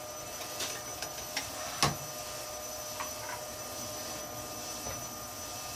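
Powermatic wood lathe running with a large log spinning on it, its motor giving a steady whine. A few sharp knocks come through, the loudest about two seconds in.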